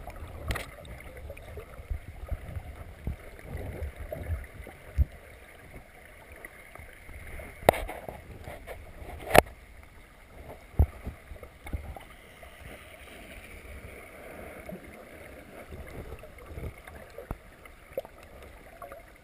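Muffled underwater sound heard through a GoPro's waterproof housing: a low watery rumble with scattered knocks and clicks, the two loudest knocks about eight and nine and a half seconds in.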